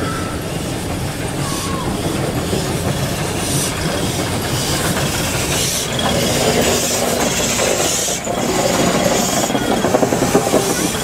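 Steam tank locomotive rolling slowly past at close range, its wheels clicking over the rails, with steam hissing from around the cylinders. The sound grows louder as it draws near.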